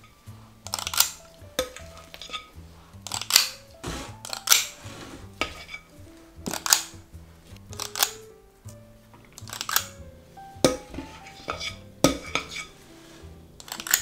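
Metal ice cream scoop scraping batter from a glass mixing bowl and clacking against a metal muffin tin, a sharp scrape or clack about once a second, over soft background music.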